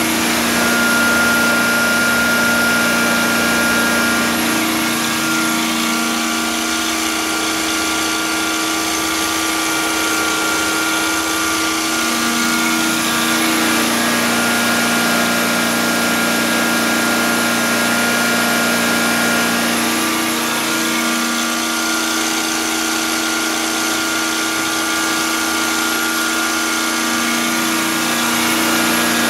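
Slayer truckmount carpet-cleaning machine running steadily under a heat-up test, its engine and vacuum blower giving a constant hum and whine.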